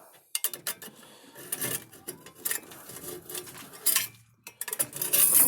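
Metal tools and car parts clinking and clanking as they are handled, a string of sharp knocks with a louder clatter near the end.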